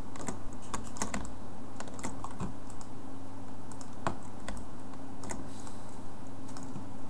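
Computer keyboard keys and mouse buttons clicking irregularly, over a steady low hum.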